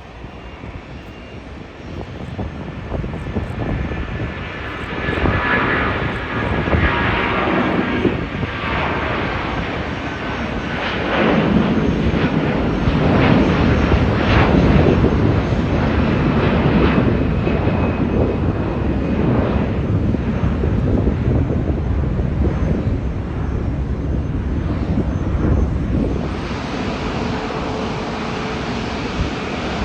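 Airbus A330-300 jet taking off: its engines build up to a loud peak near the middle, then slowly fade as it climbs away. Near the end the sound changes abruptly to the steady engine noise of an Airbus A380 taxiing.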